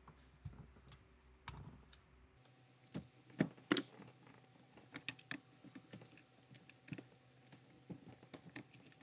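Irregular sharp clicks and taps of a tool and plastic and metal parts as a connected piece is pried off a manual transmission shifter assembly, the loudest few clicks coming about three and a half seconds in.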